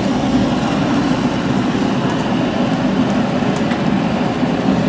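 Steady, loud background din of a crowded taqueria, an even wash of indistinct noise with no distinct events.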